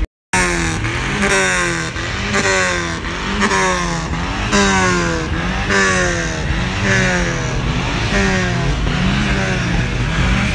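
A car engine being revved in repeated throttle blips, about one a second, the pitch dropping back after each one. A lower engine note runs steadily underneath.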